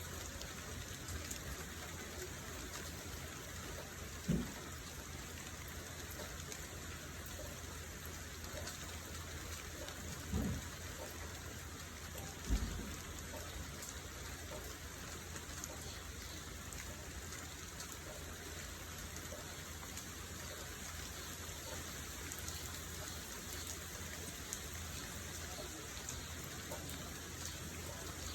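Steady rain falling, an even hiss throughout, with three short low thumps about four, ten and twelve and a half seconds in.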